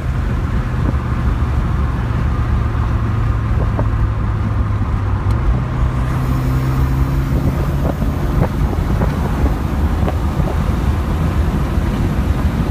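Ford Sierra Sapphire on the move, heard from inside the cabin: steady engine drone under road and tyre noise. About six seconds in, the engine note changes and a higher tone joins it.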